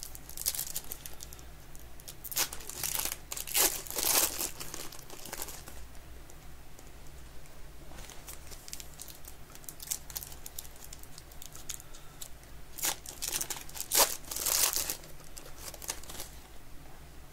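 Foil trading-card pack wrapper being torn open and crinkled by hand, in several separate bursts of crinkling with short pauses between them.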